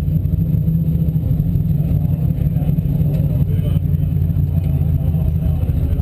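Formula Offroad race car's engine running under load, heard from a camera mounted on the car: a loud, deep, steady drone.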